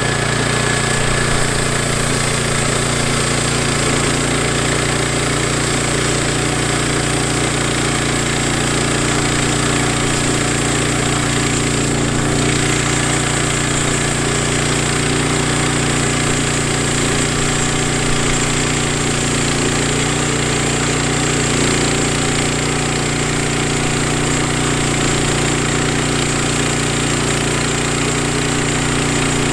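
Woodland Mills HM122 portable bandsaw mill running steadily as its band blade cuts through a cedar log.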